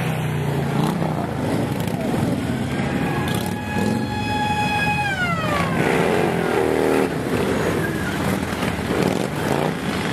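A column of Harley-Davidson motorcycles rides slowly past, their V-twin engines running together in a dense, steady mix. From about three seconds in, a high multi-note tone like a siren or horn is held over the engines, then slides down in pitch around six seconds.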